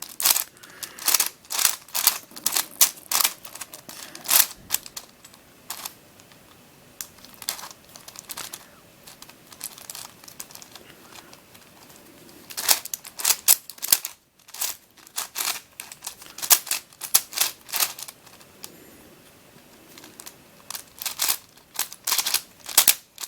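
Plastic clicking and clacking of a Witeden 4x4x4 Mixup Plus shape-shifting twisty puzzle being turned by hand to scramble it, in quick irregular runs of turns with a sparser stretch in the middle.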